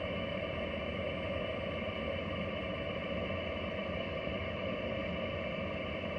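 Ham radio transceiver's speaker giving steady receiver static on the 6-metre band, with no station coming through.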